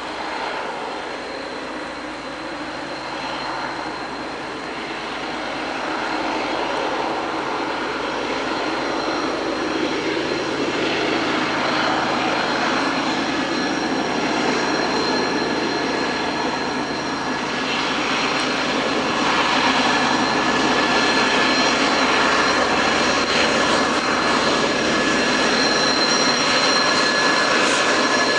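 Several BNSF diesel-electric freight locomotives running under power, their engine noise growing steadily louder as they approach and pass. A steady high-pitched whine rides over the rumble and strengthens in the second half.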